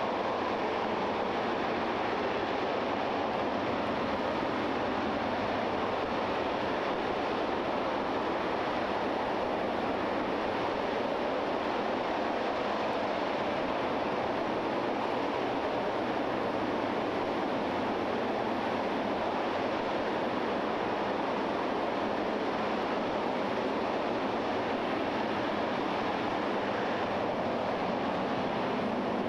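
RS-25 liquid-hydrogen/liquid-oxygen rocket engine firing on a test stand: a steady, unbroken rushing noise that holds the same level without a break.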